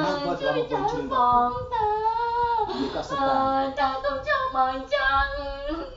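A high voice singing, with several long held notes.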